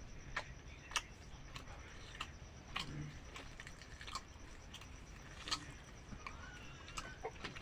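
Someone chewing and eating gulgula, fried dough balls, close to the microphone: irregular sharp clicks and smacks of the mouth, about two a second.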